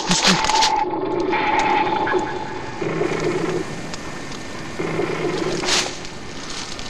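A low, steady droning hum of unknown origin. It sounds twice more in short pulses and then stops, with rustling footsteps in the undergrowth.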